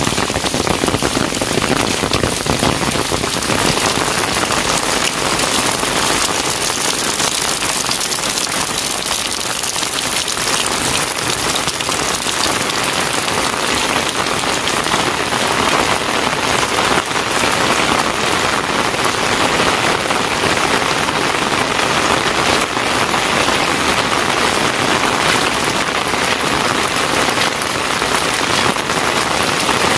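Heavy rain falling steadily, a dense even hiss of drops on wet pavement and surfaces.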